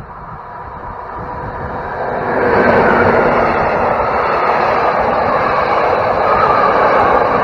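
Diesel-hauled passenger train passing close by: the V100-class diesel locomotive grows louder as it approaches, then from about two and a half seconds in the steady rolling noise of the coaches' wheels on the rails.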